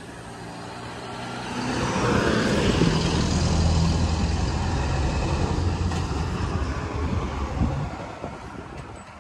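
A large road vehicle passes close by: its engine hum and tyre noise build up, stay loud for about five seconds, then fade away near the end.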